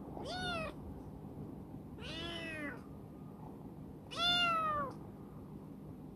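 A young female cat meowing three times, a couple of seconds apart, each call short and slightly falling in pitch, the last the loudest, while it plays at a person's hand.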